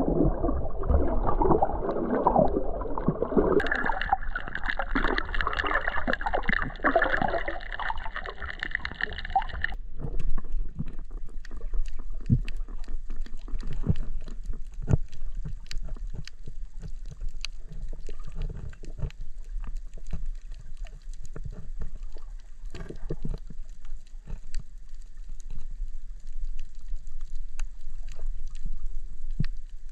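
Sea water heard underwater: bubbling and gurgling at first, then after an abrupt change about ten seconds in, a low rumble with many scattered sharp clicks.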